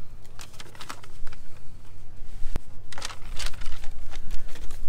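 Rustling and light clicks of hands handling a paper instruction sheet and small parts, with one sharp click about two and a half seconds in and a denser burst of rustling about three seconds in.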